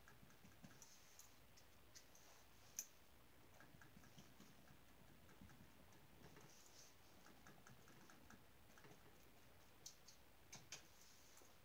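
Near silence with faint, scattered light taps and clicks of a paintbrush dabbing oil paint onto a canvas, with one sharper click about three seconds in and a few more near the end.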